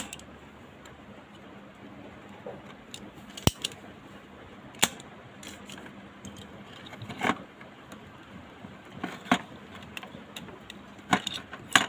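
Handling noise at a repair bench: a radio circuit board, soldering iron and desoldering pump picked up and set down, making scattered clicks and light knocks. The sharpest click comes about three and a half seconds in.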